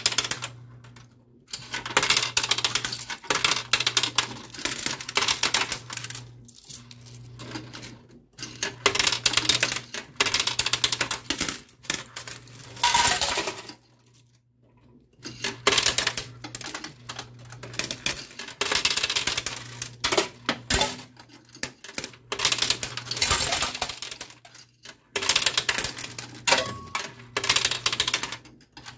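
Quarters clattering in a coin pusher machine: bursts of rapid metallic clinks a few seconds long as coins drop onto the moving shelves and against the piles, separated by short pauses. A steady low hum sits underneath.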